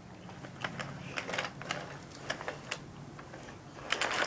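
Wooden toy train set: light, irregular clicks and clacks of the train cars and track pieces being handled and pushed along the wooden track, with a quick run of louder clicks about four seconds in.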